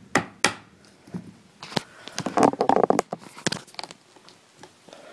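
A hammer striking wood in a quick, even rhythm ends with two last blows, while a piece of the bird playset's base is driven down. About two seconds in comes a louder burst of knocking, clattering and rustling, which then dies away.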